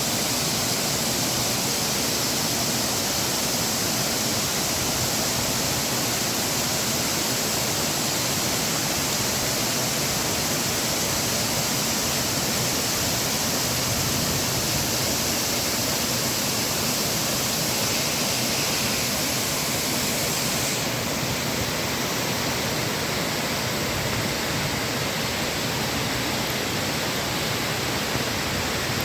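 Waterfall: a loud, steady rush of falling water. The highest part of the hiss drops a little about twenty seconds in.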